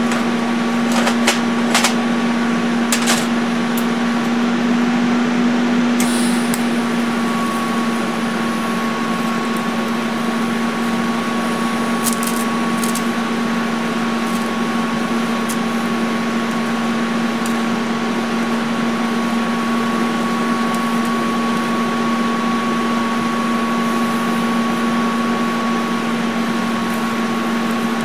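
Lincoln TIG200 Square Wave TIG welder running an arc, a steady buzz and hiss with a constant hum underneath. A few sharp clicks come in the first few seconds and again briefly around the middle.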